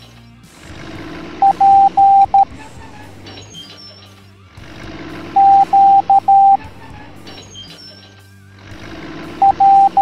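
Morse code beeps: one steady high tone keyed in dots and dashes, in three groups spelling P (dot dash dash dot), Q (dash dash dot dash) and R (dot dash dot), over light background music.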